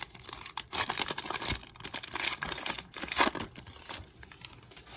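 Trading card pack wrapper being torn open and crinkled by hand, an irregular run of crackling rustles that dies down about four seconds in.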